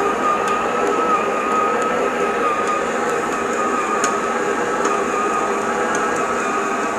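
Silvercrest stand mixer's motor running steadily with a constant whine, under load as it kneads a stiff dough of 500 g flour and 300 ml water.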